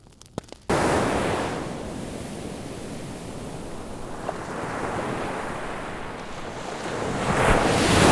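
Ocean surf: waves washing in, starting abruptly under a second in, easing off, then building to a louder breaking wave near the end.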